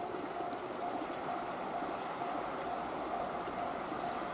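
Japanese railway level-crossing warning bell ringing, a single repeated ding about twice a second, which signals an approaching train. It sounds over a steady rushing noise.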